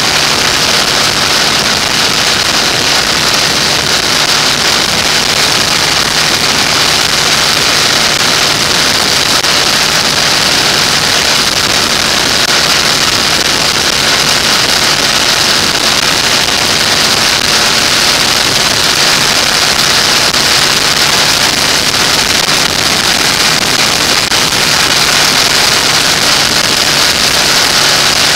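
Motorcycle cruising at a steady speed: a constant rush of wind over the microphone with the engine's even hum underneath.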